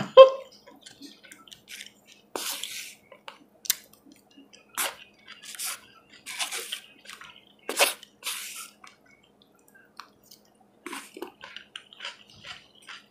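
Eating sounds from someone chewing grilled lamb: mouth noises, lip smacks and finger-licking, in scattered short clicks and brief hissy bursts with quiet gaps between.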